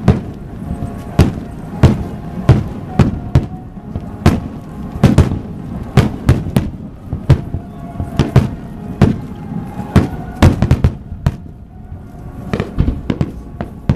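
Fireworks shells bursting in a rapid barrage, sharp bangs about two or three a second, with a short lull about three-quarters of the way through before the bangs pick up again.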